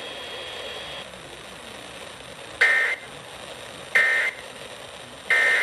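Emergency Alert System end-of-message code: three short bursts of two-tone digital data, about a second and a third apart, over a steady hiss. It signals that the flash flood warning broadcast is over.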